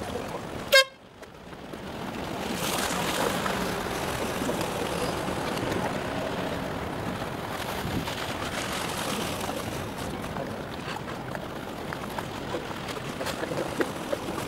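One short horn blast about a second in, followed by steady wind and water noise on the microphone.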